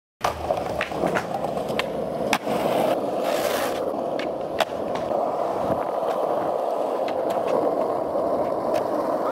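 Skateboard rolling steadily on pavement, the wheels making a continuous rolling rumble scattered with sharp little ticks. It starts suddenly a fraction of a second in.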